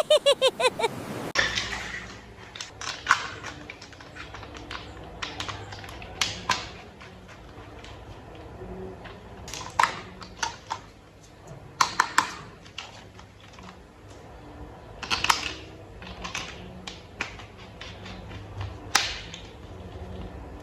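Plastic toy vehicle parts clicking and snapping together as they are assembled by hand: irregular sharp clicks and taps, a few louder snaps among them. A quick run of pitched ticks opens it in the first second.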